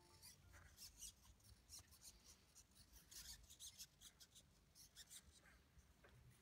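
Near silence: faint, scattered soft ticks and rubbing over a low room hum.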